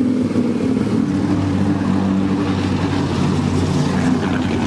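Race car engine idling steadily, an even low drone that holds the same pitch throughout.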